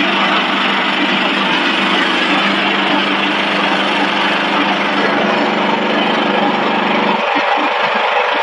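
Snack chip production-line machinery running loudly and steadily, a mechanical hum over a broad whirring noise. About seven seconds in, the low hum changes to a rapid fluttering pulse.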